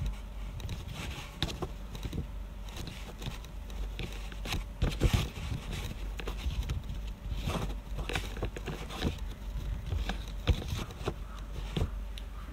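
Irregular light taps, knocks and rustles of a handheld phone being handled and tapped, over a steady low hum.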